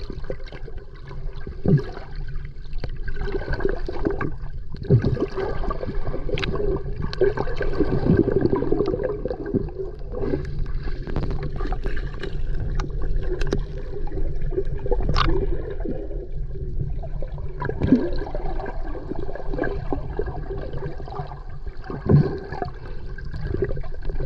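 Underwater ambience: water bubbling and gurgling over a steady low rumble, with scattered short pops.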